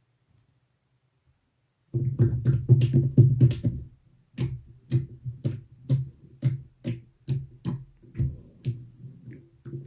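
Slime being squeezed and pressed, making sharp wet popping clicks. A dense flurry of pops starts about two seconds in, then settles into regular clicks about two a second.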